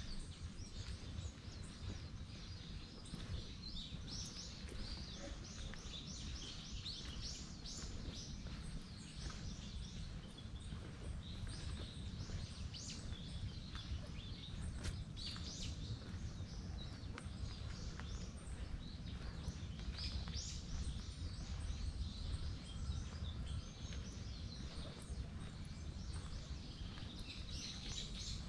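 Small woodland birds chirping and calling, short notes coming in runs, over a steady low rumble.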